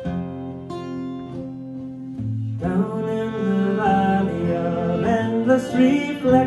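Instrumental introduction to a folk song arrangement: bowed strings (violin, viola and cello) playing held notes with acoustic guitar. About two and a half seconds in, the ensemble swells into a fuller, louder passage with wavering upper string lines.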